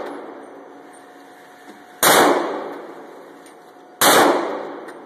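Two gunshots about two seconds apart, each dying away in a long echo.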